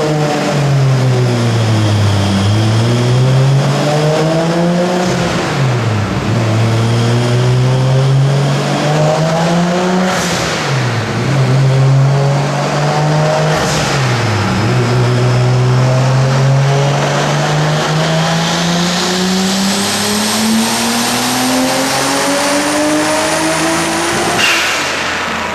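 Toyota Supra's turbocharged 2JZ-GTE straight-six on a chassis dyno, pulled at full throttle through the gears: the engine note climbs and drops sharply at three shifts, with a short hiss at two of them. A long final pull rises steadily, with a high turbo whistle rising over it, and cuts off sharply near the end as the throttle closes.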